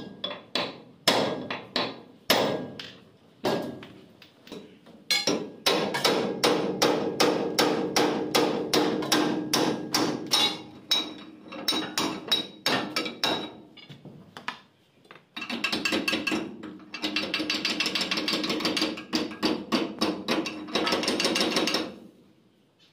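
Steel hammer striking the hub of a Swaraj 8100 combine harvester's belt pulley, metal on metal, to knock the pulley off its shaft. First come a few separate blows about a second apart, then long runs of quick blows with a ringing tone. The blows stop about a second before the end.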